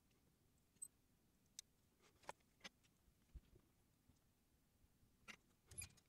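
Near silence: room tone with a few faint, scattered clicks and taps, the last two near the end.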